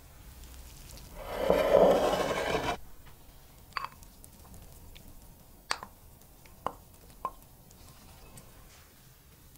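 Close-up kitchen handling sounds as chopped scrambled egg is tipped from a glass bowl onto raw dough: a loud rustling noise lasting under two seconds, then four light, sharp taps spread over the next few seconds.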